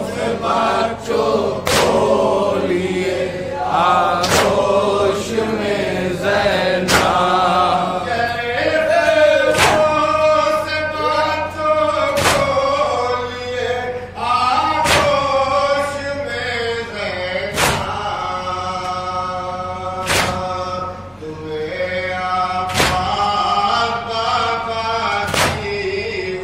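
A group of men chanting a noha, a Shia Muharram lament, in unison. Their hands slap their chests together in matam, one beat about every two and a half seconds.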